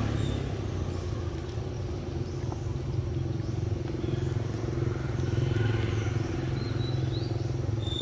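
A steady low motor hum runs throughout. A few faint, short high chirps come near the end.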